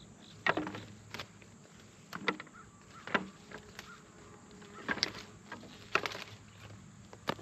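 Scattered short crackles and rustles, about one a second, of someone moving through pepper plants and handling them, over a faint steady low hum.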